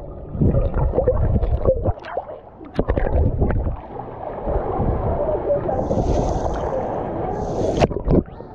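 Water sloshing and gurgling in uneven surges, with a few short knocks.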